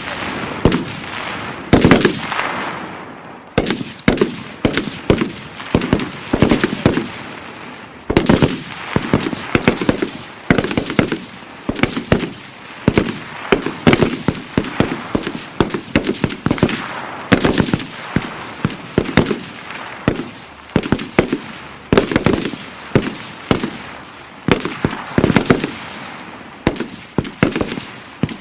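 Colt M16 assault rifle firing: an irregular string of shots, some single, some in quick doubles and short bursts, each trailing off in an echo.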